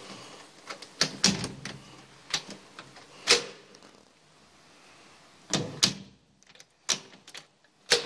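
Sharp metallic clicks and clunks of a key working a Bi-Lock cylinder in a Lockwood mortice lock, the bolt and latch snapping as the door is handled. The loudest clunk comes about three seconds in, with a quick pair of clicks about five and a half seconds in and a few more near the end.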